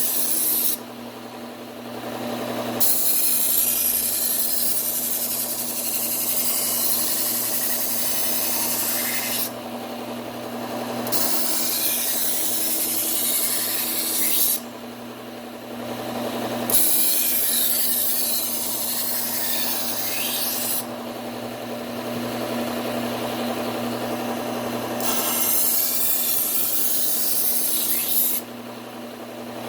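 Bucktool low-speed belt sander running steadily with a P120 Cubitron belt, as a Wusthof kitchen knife edge is ground against the belt in long passes of several seconds each. Short breaks between the passes leave only the motor hum, about five passes in all.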